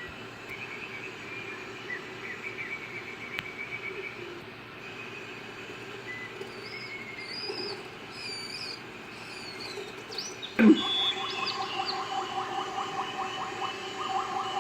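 Grassland nature ambience: birds chirping and whistling over a steady background. About ten seconds in, a loud call sweeps sharply down in pitch, then a fast, rhythmic chattering call carries on to the end.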